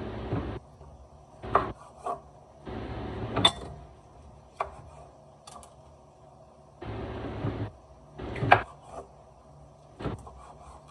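Kitchen handling noise: short bursts of scraping and rubbing, with a few sharp clicks and knocks between them.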